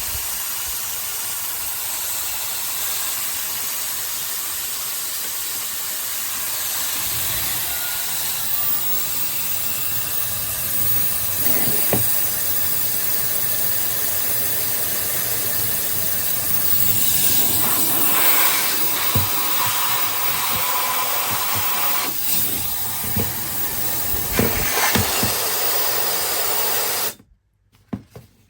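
Hair dryer running, a steady rush of blown air with a faint high-pitched motor whine, and a few light handling knocks. It is switched off abruptly near the end.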